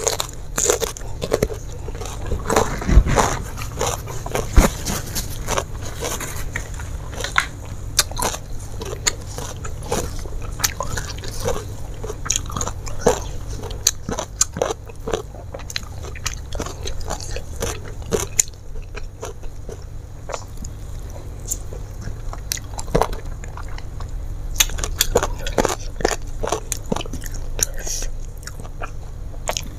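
Close-miked eating: crunching and chewing of raw bitter melon, then mouthfuls of rice eaten by hand. It is a steady, irregular run of crunches, clicks and wet mouth sounds.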